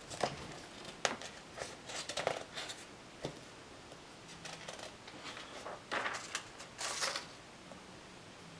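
Paper rustling and a few light taps as a workbook page is handled and turned over, with two louder swishes of the page past the middle.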